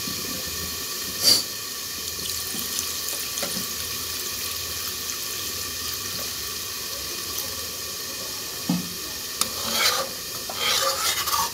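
Warm water poured in a steady stream into a kadai of chicken and potato curry, a continuous splashing hiss. A single sharp knock comes about a second in, and near the end a metal spatula clatters and scrapes against the pan as the curry is stirred.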